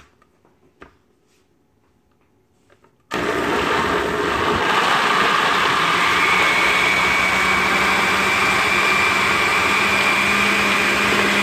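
A few faint clicks, then about three seconds in a countertop blender switches on and runs steadily, blending a fruit smoothie. A high whine joins a few seconds later.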